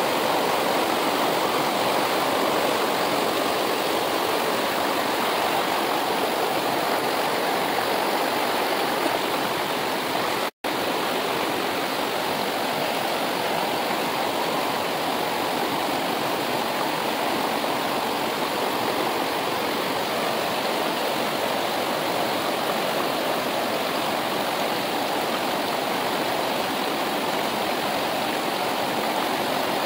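Fast river water running steadily over rocks, a loud, even rushing. It cuts out for an instant about ten and a half seconds in.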